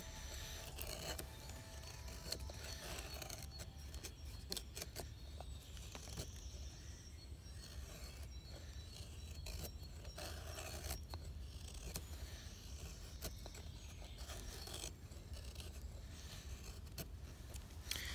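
A knife blade shaving thin curls down a green stick to make a feather stick: repeated short scraping strokes of steel on wood.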